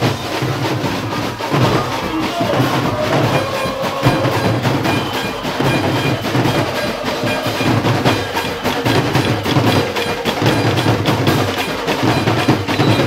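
Live carnival percussion band: a troupe of drummers beating snare and bass drums with sticks in a dense, steady rhythm.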